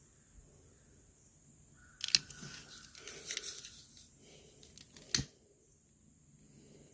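Small hand work on heat-shrink tubing: rustling and crinkling, with two sharp snips, one about two seconds in and one about five seconds in.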